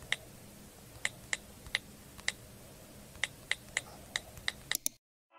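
Computer keyboard keys clicking in irregular keystrokes, about a dozen taps over a faint low hum, with a quick run of taps near the end.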